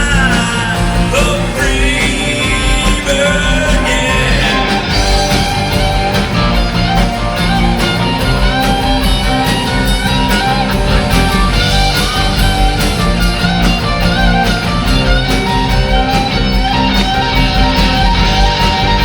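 Live southern rock band playing: a singing voice over electric guitars, bass and drums.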